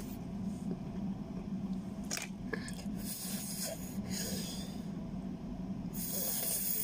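A person breathing hard through the mouth, with long hissing breaths about three seconds in and again near the end, as a reaction to the heat of fresh chili. A steady low hum runs underneath.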